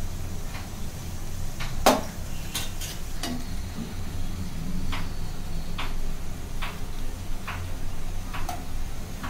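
Chakli deep-frying in hot oil in a kadhai, with a steel slotted spoon clicking against the pan about once a second; the sharpest knock comes about two seconds in.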